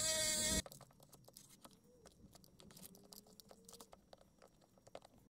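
A handheld rotary tool running at high speed with a polishing wheel gives a steady whine that cuts off about half a second in. Then comes faint, irregular crackly rubbing as a cloth is worked over the leather case.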